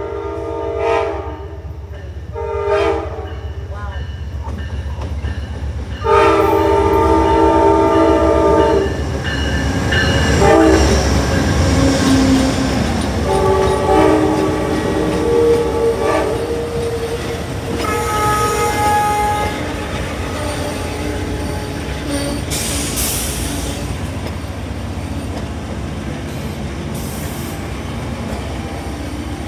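Amtrak passenger train led by a GE P42DC Genesis diesel locomotive, sounding its multi-chime air horn in a series of blasts. There are two short ones near the start, a long loud one about six seconds in, then several more through the middle. The diesel rumble and the rolling clatter of the passenger cars carry on after the horn stops.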